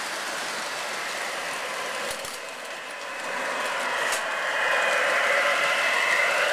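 O-gauge model train, a steam locomotive with a tender pulling lit passenger cars, running on the track with a steady rolling rumble and hum. The sound grows louder from about three seconds in as the train comes out of the tunnel, with a couple of faint clicks along the way.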